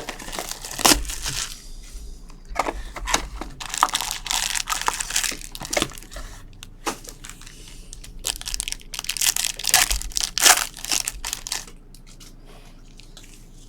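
Plastic wrapping being torn and crinkled, with cardboard handled, as a sealed Panini Select trading-card box and its packs are opened. The sound is a long run of irregular crackling and tearing rustles that stops near the end.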